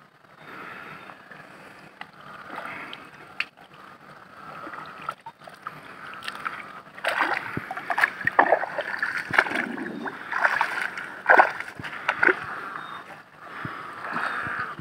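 Hands digging and scooping in wet mud and shallow water, digging a mud crab out of its burrow: irregular sloshing and squelching, denser and louder in the second half.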